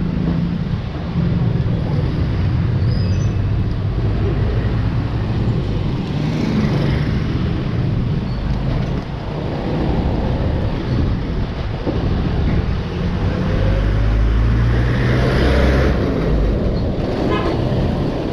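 Traffic on a narrow street: the engines of motor vehicles, mostly motor tricycles, running close by, with a steady road rumble that grows a little louder about fifteen seconds in.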